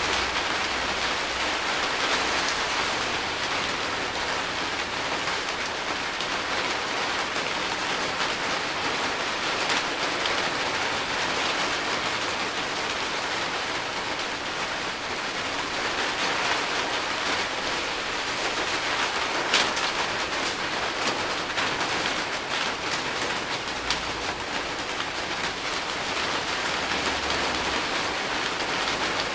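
Steady thunderstorm rain falling, an even, dense hiss of drops with a few sharper taps, the clearest about two-thirds of the way in.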